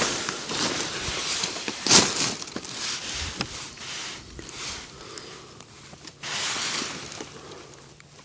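Irregular rustling with scattered clicks and knocks of camping gear being handled, the loudest knock about two seconds in.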